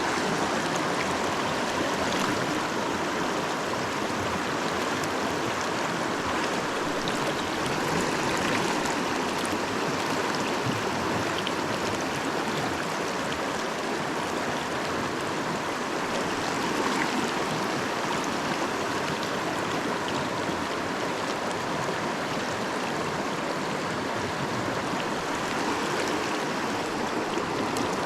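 Creek water running steadily over riffles, an even rush with no pauses.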